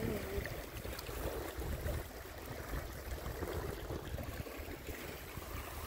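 Lake water lapping and trickling softly among shoreline rocks.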